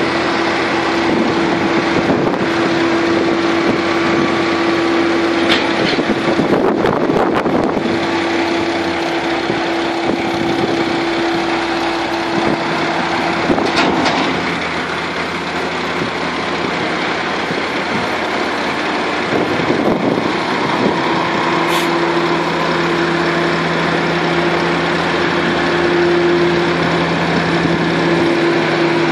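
Diesel engines of a Case Magnum tractor and a JCB telehandler running under load as they push and pack chopped maize on a silage clamp: a steady engine drone with a high whine over it that drops out and comes back a few times, and a shift in the engine note about halfway through.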